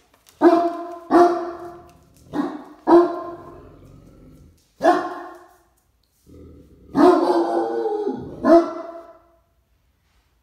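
A Great Dane barking about seven times at uneven intervals, an alert at the door chime.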